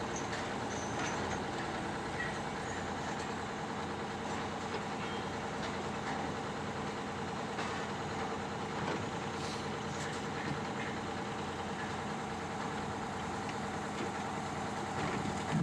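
A heavy machine's engine running steadily, with a few faint knocks over it.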